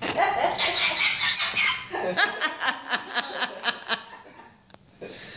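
Parrot squawking and chattering loudly, breaking into a rapid run of short repeated calls, about four a second, before trailing off.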